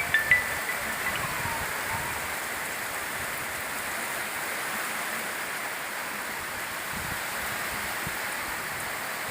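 Heavy rain falling in a steady hiss, with a couple of brief high chirps at the very start.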